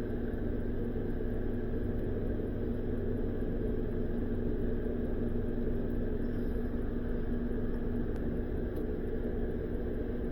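Steady hum of an electric motor running, with a constant low tone and no change in pitch or level.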